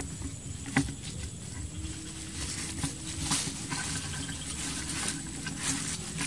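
Handling noise from a handheld camera being moved about, a low rumble with scattered rustles and a sharp click about a second in.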